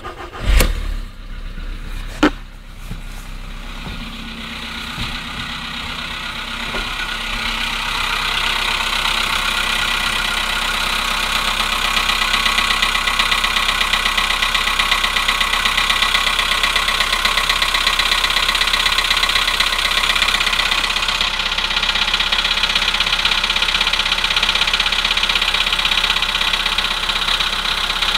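Volkswagen Polo Sedan petrol engine just after a cold start, with two sharp clacks in the first couple of seconds, then idling with a steady, rapid metallic knocking that grows louder over the first ten seconds or so and then holds. These cold-engine knocks are what the owner says are getting worse.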